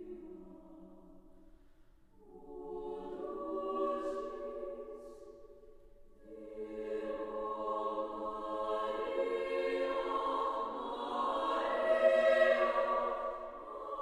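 Women's chorus singing sustained chords. A held chord fades away, a new phrase swells in about two seconds later and dies down, and then a fuller phrase builds, loudest near the end.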